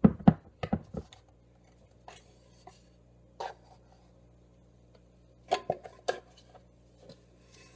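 Knocks and clunks of a bread machine's metal baking pan being lifted out, turned upside down and tapped to free the dough: a quick run of sharp knocks at the start, a few single taps, then another run of knocks about five and a half seconds in.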